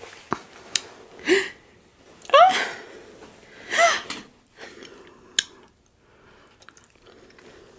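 A person's short, breathy vocal sounds, three rising or arching hums or gasps about a second apart, between a few sharp clicks of eating.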